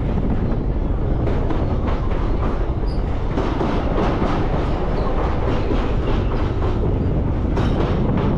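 Passenger train running at speed, heard from on board: a steady rumble with the clatter of wheels over the rails.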